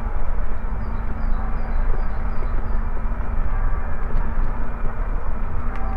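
Steady rumble of bicycle tyres rolling over brick pavers, mixed with wind on the microphone as the bike moves along.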